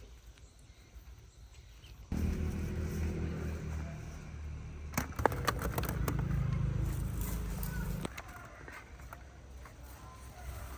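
A motor vehicle's engine running: a low steady hum that starts suddenly a couple of seconds in and stops suddenly near the end, with a few sharp clicks about halfway.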